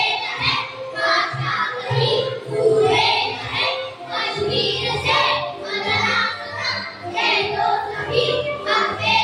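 A group of young children singing a patriotic song together, over a musical accompaniment with a low, steady bass line.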